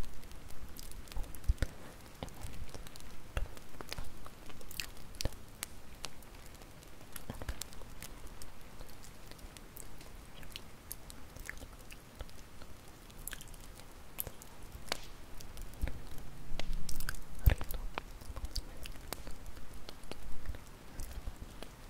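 Bonfire crackling: irregular sharp pops and snaps of burning wood over a low, steady rush of flame, with a busier run of louder pops about three quarters of the way through.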